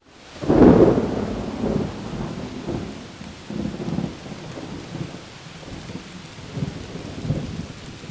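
Thunder rolling, loudest about a second in and rumbling on in weaker waves, over a steady hiss of rain.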